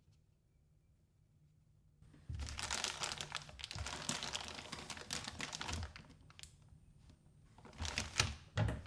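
Plastic packaging crinkling and rustling as it is handled, with scattered light clicks and knocks and a second louder flurry near the end. A faint steady high-pitched whine from a faulty XLR microphone cable sits underneath.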